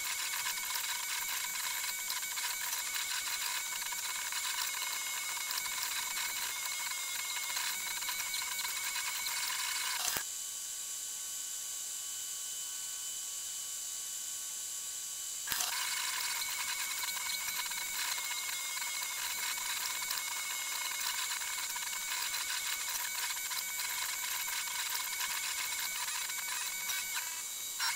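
3D printer's stepper motors whining with several high steady tones as the print head moves. Between about ten and fifteen seconds in the sound turns quieter and smoother on different tones, then the busier printing sound comes back.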